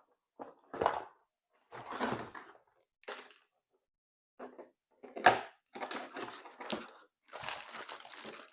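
Hard plastic toy parts and packaging being handled and unpacked: a series of irregular knocks and scrapes, the loudest a sharp knock about five seconds in, then a stretch of rustling near the end.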